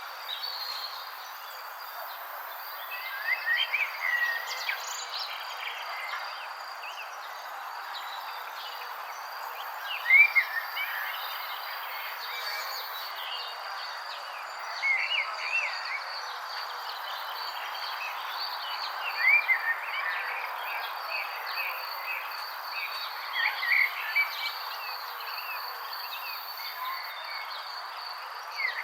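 Songbirds chirping in short clusters of quick calls every few seconds, over a steady high insect trill and a constant background hiss.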